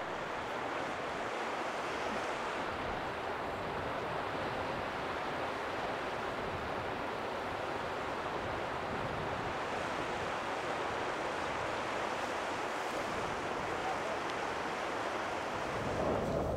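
Steady wash of sea surf on a sandy beach, mixed with wind, getting a little louder near the end.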